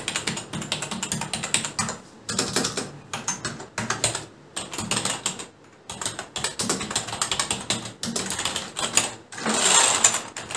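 ANT Esports KM580 gaming keyboard being typed on: quick runs of key clicks broken by short pauses, with a denser, louder run of clicks near the end.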